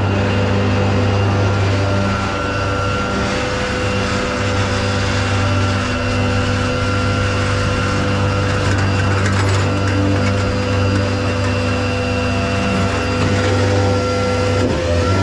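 Peterbilt rollback tow truck running with its hydraulics engaged: a steady low engine drone with a constant whine over it, unchanged throughout.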